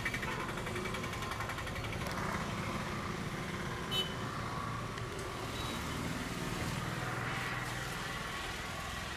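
Street traffic: the steady hum of passing vehicles and engines. A single sharp click comes about four seconds in.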